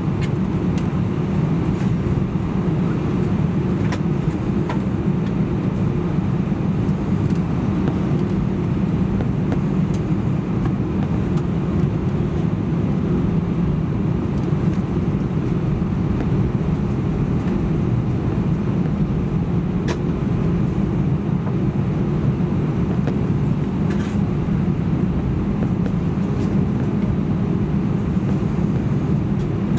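Steady low cabin rumble of an Airbus A319-131 on the ground before takeoff, its IAE V2500 engines running at idle, with a few faint clicks.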